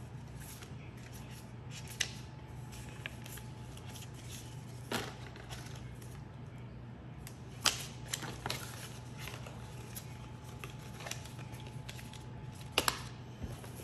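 Paper leaflets and cards being handled, rustling softly with a few sharp snaps and taps, two close together near the end, over a steady low hum.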